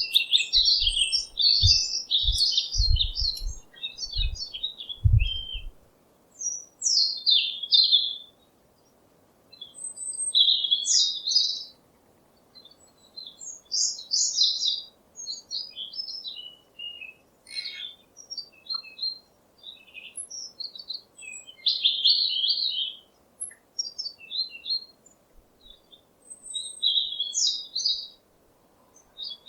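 Small songbirds chirping: short bursts of quick, high notes and trills with brief pauses between phrases. A few low thumps sound in the first few seconds.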